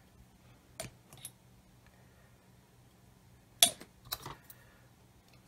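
A few small clicks and a short clatter as a glue bottle and hobby tools are handled and set down on a cutting mat, the sharpest knock about three and a half seconds in.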